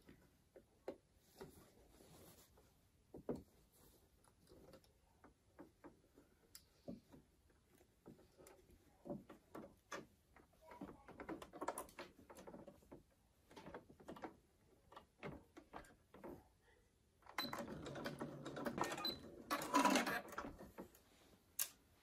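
Light rustling and clicking of fabric being handled at a Singer Quantum Stylist 9960 computerized sewing machine, then the machine stitching in a steady run of about three seconds near the end.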